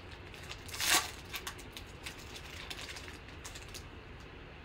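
Football trading cards being slid out of a torn foil pack and handled: a short rustle about a second in, then light clicks and taps as the stiff cards knock together.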